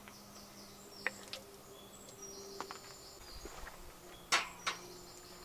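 A few light clicks and then two sharper knocks a little past the middle, from a metal utensil, skillet and plates as food is served out of a wrought-iron pan onto metal plates, over a faint outdoor background.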